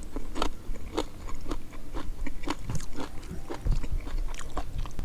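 Close-up chewing of crunchy food: a run of sharp crunches, about two or three a second.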